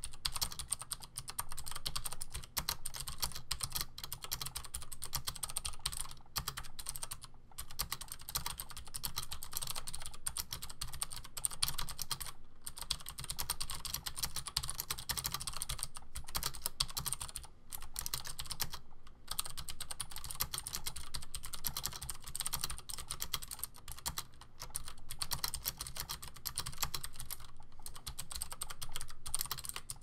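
Continuous typing on a Dolch Inet 386 keyboard: plate-mounted Cherry MX Blue switches clicking under thin doubleshot ABS keycaps, with a few short pauses.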